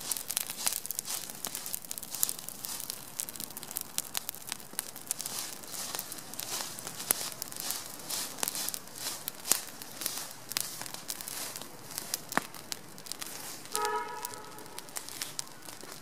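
Small fire of dry leaves and twigs crackling, a dense irregular run of sharp snaps and pops. A short pitched call sounds once near the end.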